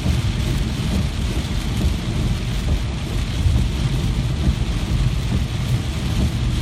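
Steady heavy rain as a continuous hiss, with a deep, continuous low rumble underneath.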